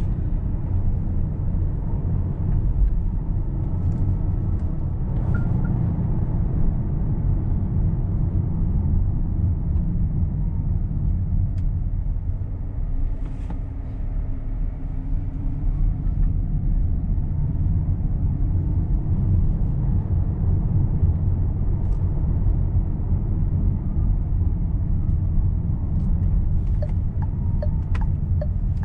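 A Renault Rafale E-Tech full hybrid being driven, with a steady low road and tyre rumble. A few faint clicks come near the end.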